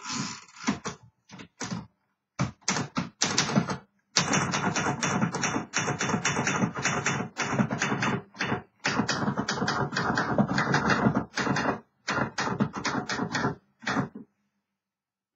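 Keys of a 1960s Remington Personal-Riter manual portable typewriter being struck in quick runs of typing. A few scattered keystrokes come first, then dense runs lasting several seconds, broken by short pauses.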